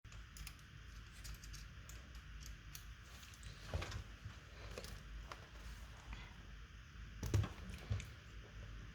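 Light, irregular clicks and taps on a laptop, with a louder knock about four seconds in and two more near the end.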